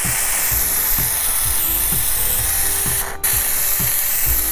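Handheld steam gun hissing steadily as it blows steam onto old vinyl decals to soften their adhesive. The hiss cuts out for a moment about three seconds in, then resumes.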